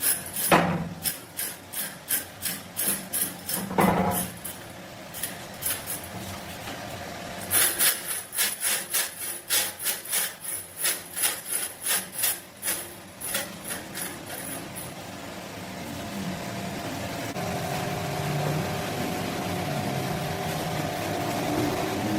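Rhythmic back-and-forth scraping strokes of a hand tool on a workpiece, about two strokes a second, in two bouts. Then a steady machine hum sets in.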